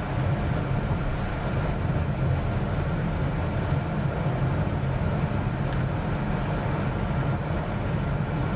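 Honda Vezel driving along, heard from inside the cabin: a steady low rumble of road and engine noise with no distinct events.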